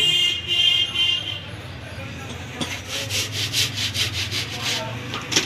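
Hand rubbing or sanding strokes on a wooden part of a harmonium under repair. A high squeaky tone sounds in the first second or so, then comes a run of short scratchy strokes, about four a second.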